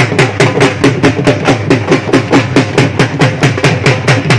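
Several dhols, two-headed barrel drums beaten with sticks, played together in a fast, steady rhythm of about six strokes a second, each stroke with a deep low note from the bass head.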